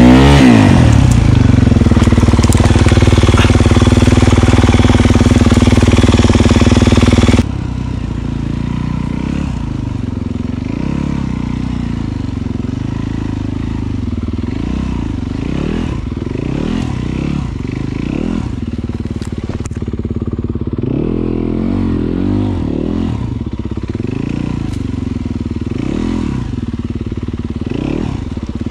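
Dirt bike engine comes in loud, its pitch dropping in the first second, then runs steadily. About seven seconds in the level drops suddenly, and from then on the engine revs up and down repeatedly.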